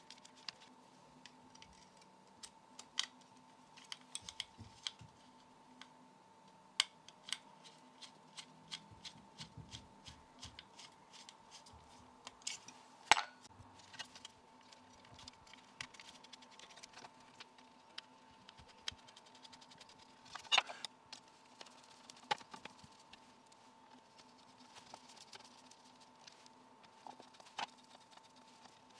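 Scattered small clicks and light knocks of a plastic computer case fan and its wires being handled and fitted into a bench power supply's sheet-metal chassis, with two sharper clicks near the middle. A faint steady hum runs underneath.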